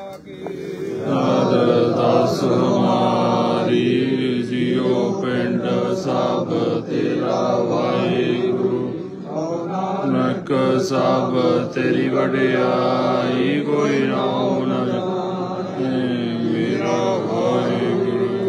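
A group of Sikh mourners chanting together in unison with long held notes. The chant begins about a second in.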